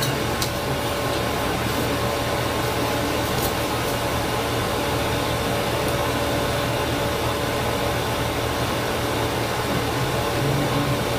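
Steady hiss and hum of room noise, boosted by the camera audio's automatic levelling, with a thin steady tone running through it. A couple of faint ticks from handling components.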